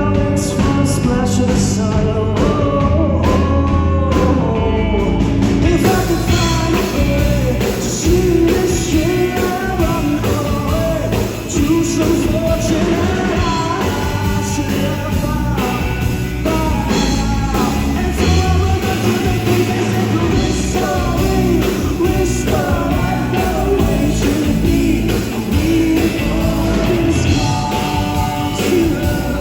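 A rock band playing live with a male lead singer singing over it. The band's sound gets fuller about six seconds in.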